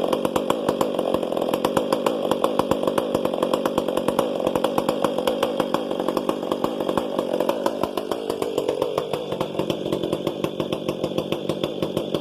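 Stihl MS500i fuel-injected two-stroke chainsaw fitted with an Egan Straight Shot performance muffler, running with an even, rapid pulsing exhaust note. The note shifts slightly about eight seconds in.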